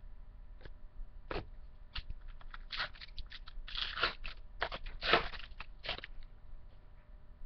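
A baseball card pack wrapper crinkling and crackling as it is torn open and handled: a run of uneven crackles lasting about five seconds, loudest a little past the middle.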